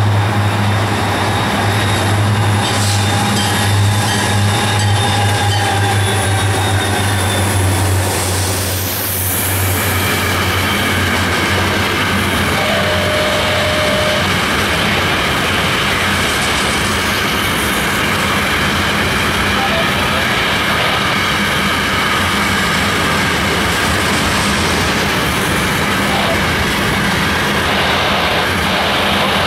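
Freight train led by FEC EMD SD40-2 diesel locomotives passing close by. The locomotives' steady low engine drone fills the first several seconds, and it is loudest about nine seconds in as they go by. Then a long string of hopper cars rolls past with steady wheel and rail noise and some high squealing tones from the wheels.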